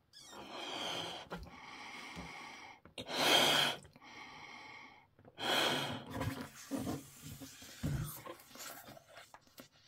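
A person blowing up a large latex balloon by mouth: several long breaths blown into it, with two louder gasping breaths between, about three and five and a half seconds in. Softer, irregular sounds follow over the last few seconds.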